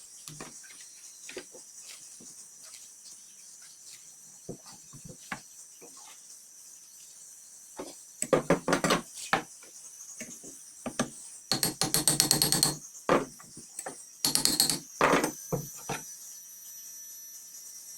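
Hand tools at work enlarging a hole: scattered knocks and taps, then three bursts of rapid striking or scraping strokes about eight, eleven and a half, and fourteen seconds in. A faint steady high shrill of insects runs underneath.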